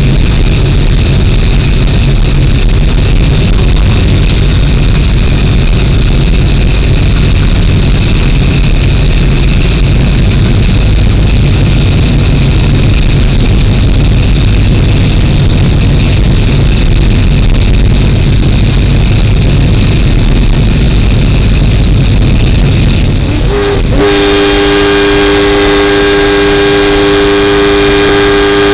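Steady loud running noise of a train, heard from the driver's cab, with a constant high whine. About 24 seconds in, the train's horn sounds a held chord of several notes for about five seconds.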